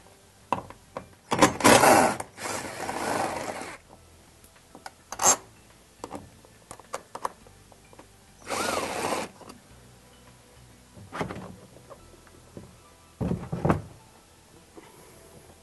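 Cordless drill with a socket spinning out bolts in three short runs, the motor whining while it turns. Between the runs come small clicks and clinks of metal bolts and parts being handled, with a louder clunk near the end.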